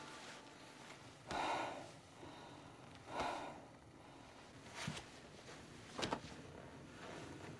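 A person breathing heavily: two loud gasping breaths a little under two seconds apart, followed by two short clicks.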